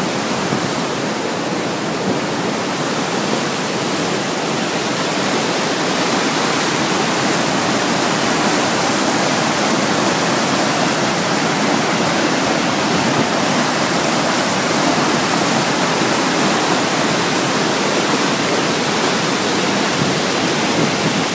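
Swollen river rapids, white water rushing hard over and between boulders after heavy rain: a loud, steady rush, a little louder after about six seconds.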